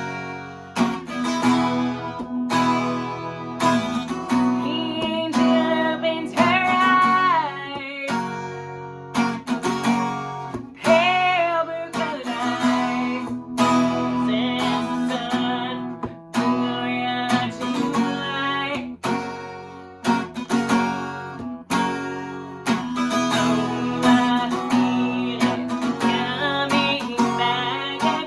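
Acoustic guitar being strummed in a steady rhythm, with a voice singing over it at times.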